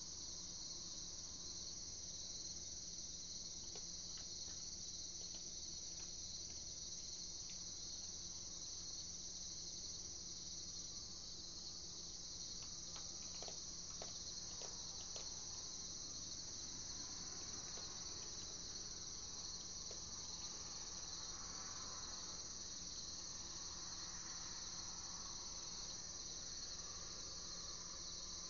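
Faint, steady night chorus of crickets, a constant high trill, over a low steady hum, with a few faint clicks partway through.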